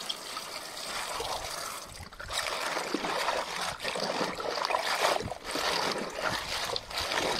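Water running into an enamel basin of cabbage leaves and splashing as hands rinse and swish the leaves in it. The splashing rises and falls unevenly, dipping briefly about two seconds in.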